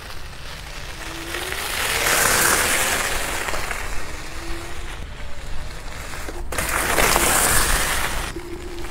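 Electric scooter ridden past over loose gravel: a rushing crunch of tyres on the gravel that swells twice and fades, with a faint thin motor whine.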